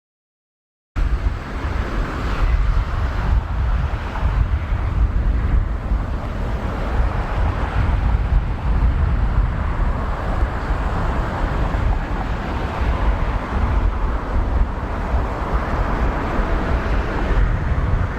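Steady outdoor rumble of a distant jet airliner's engines, with wind buffeting the microphone; it cuts in suddenly about a second in.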